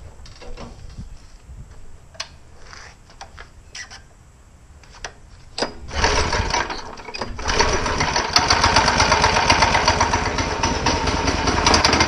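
Honda GX200 single-cylinder engine on a go-kart being pull-started. After a few light clicks and knocks, it catches about six seconds in, stumbles briefly, then keeps running with a fast, even putter.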